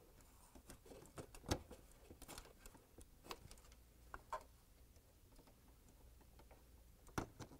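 Faint, scattered clicks and taps of plastic handling as flex-cable connectors are pushed onto a dishwasher's electronic control board, over near silence.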